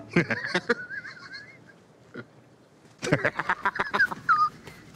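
A man laughing heartily in two bouts of quick, pitched bursts: a short one at the start and a longer one from about three seconds in.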